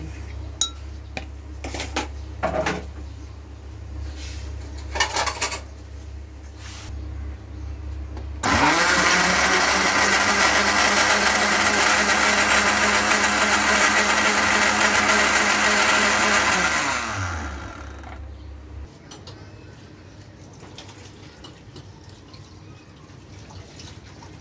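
Electric countertop blender starting abruptly and running steadily for about eight seconds as it purées watermelon chunks into juice, then spinning down with a falling pitch. Before it starts, a few light knocks over a low hum.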